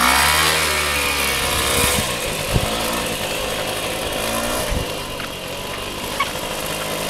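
Small motor scooter's engine revving unevenly as it pulls away, then running on and growing fainter as it rides off down the track.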